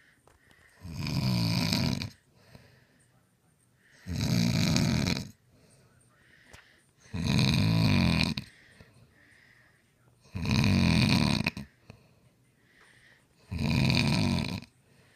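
A man snoring in his sleep: five loud snores, each about a second long, coming about every three seconds, with near quiet between them.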